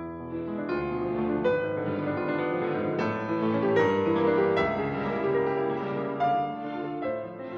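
Background music led by piano.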